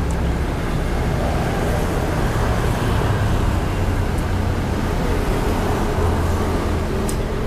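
Road traffic going by: a steady low engine rumble and tyre noise from passing cars and motorbikes, with a few faint light clicks.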